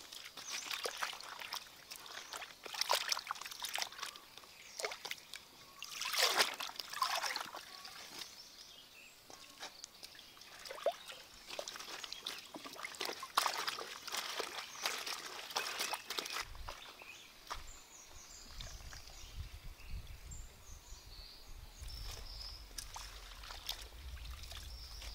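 Water sloshing, trickling and splashing irregularly as hands rinse food in stream water. About two-thirds of the way in the splashing gives way to a low steady rumble with faint high chirps.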